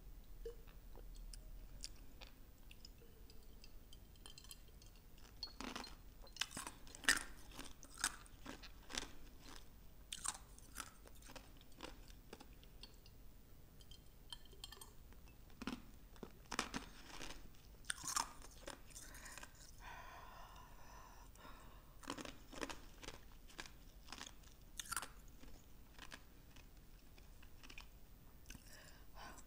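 Chewing and crunching of fried chicken wings: irregular crisp crunches and wet mouth clicks, busiest from about six seconds in until about twenty-five seconds in.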